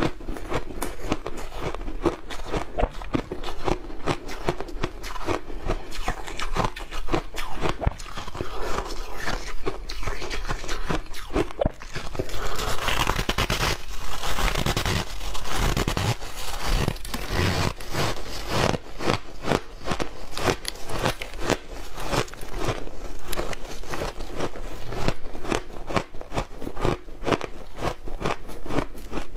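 Refrozen shaved ice crunched and chewed close to lapel microphones: a dense run of crisp crackles and crunches as mouthfuls are bitten and chewed, loudest and busiest about halfway through.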